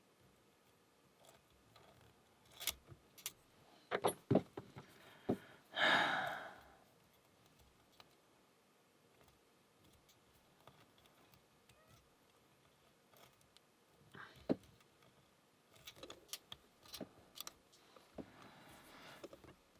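Lock pick and tension tool working in the keyway of a Burg Wächter Karat padlock: scattered small metallic clicks and scrapes as pins are set, with a short rush of noise about six seconds in.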